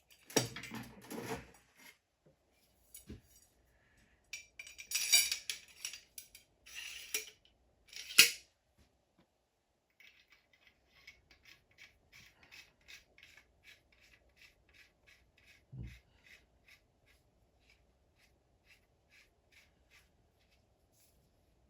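Metal motorcycle fork parts being handled and fitted together: a few scraping, rubbing clinks in the first half, then a long run of faint quick ticks, about three a second, with a single dull knock partway through.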